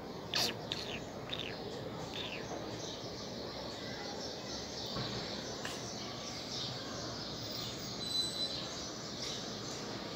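Budgerigar giving a few short chirps and a 'prrr' trill in the first two seconds or so, then softer scattered chirping over a steady background hiss.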